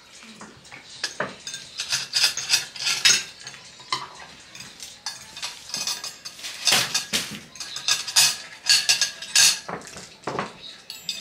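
Eating noise at a table: irregular clinks and scrapes of utensils and dishes, with rustling of paper food wrappers, coming in clusters.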